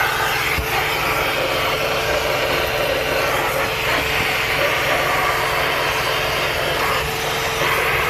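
Car vacuum cleaner running steadily with its corner-cleaning nozzle fitted: a constant motor whine over rushing suction air.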